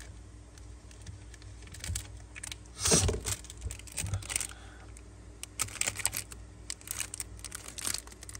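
Zippo lighter handled in the hands: a louder metallic clack about three seconds in, then a run of light clicks and taps of the metal case.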